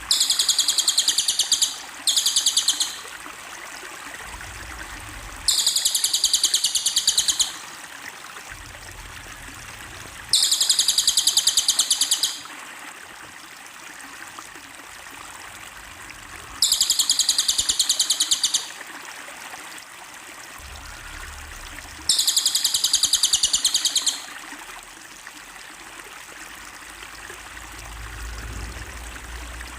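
A small songbird repeating a rapid, high, buzzy trill, each burst up to about two seconds long, every five to six seconds, over the steady rush of running water.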